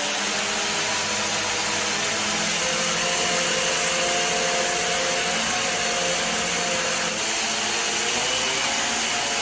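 A machine running steadily: a constant rushing noise with several steady tones held underneath, unchanging throughout.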